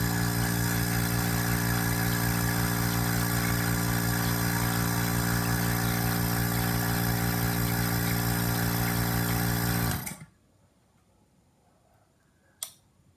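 Rotary vane vacuum pump running with a steady, even hum, then switched off about ten seconds in and stopping within a moment. A single sharp click comes near the end.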